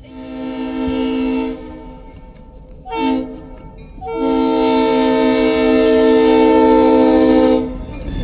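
Strasburg 8618 diesel switcher locomotive's air horn sounding a long blast, a short one and a longer one: the grade-crossing signal as it approaches the crossing. Near the end the horn stops and the rumble of the locomotive rolling up to the crossing takes over.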